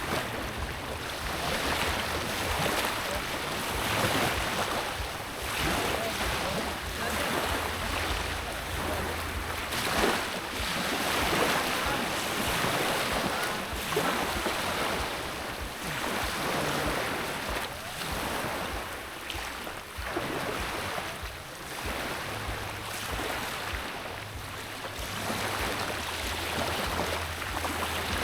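Sea waves washing and surging, swelling and easing every few seconds, with wind buffeting the microphone.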